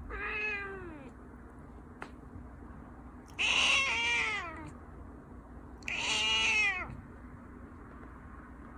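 Persian cat meowing three times, each meow about a second long and rising then falling in pitch; the middle one is the loudest.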